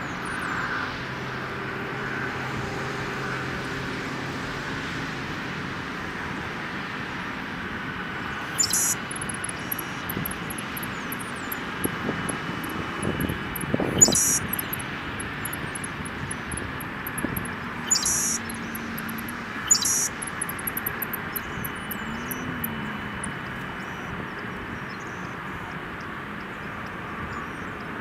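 Jet airliner engines running steadily at idle. Four brief high-pitched chirps stand out over it around the middle.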